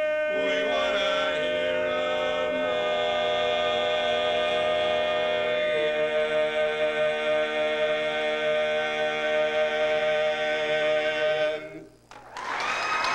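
Four-man barbershop quartet singing a cappella, holding one long final chord that shifts a couple of times before cutting off about twelve seconds in. Applause breaks out near the end.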